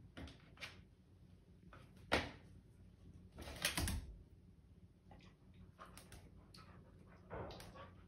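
Scattered knocks, clatter and scuffling of a schnauzer puppy's paws and claws bumping a plastic pet carrier and tapping the hard floor as it spars with a cat on top. A sharp knock comes about two seconds in, the busiest scuffle just after three and a half seconds, and another flurry near the end.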